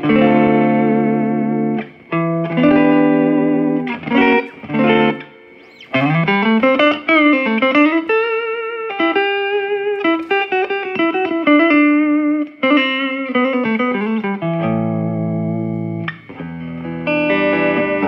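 Fender Stratocaster electric guitar played through a red-knob Fender Champ 12 combo amp. It opens with strummed chords, moves to single-note lead lines with bends and slides through the middle, and returns to chords in the last few seconds.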